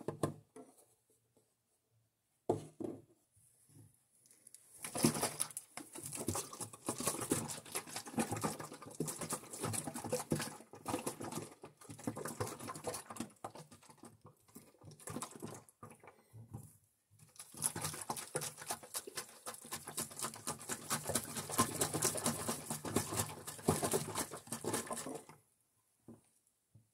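A 2-quart bottle of water and orange drink-mix powder being shaken hard to dissolve the powder, the liquid sloshing and splashing inside in rapid, dense strokes. There are two long bouts of shaking with a short pause between them.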